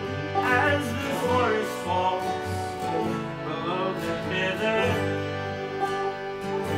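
Acoustic folk song played live: a man and a woman singing over a sustained harmonium, a Gibson J-45 acoustic guitar and banjo.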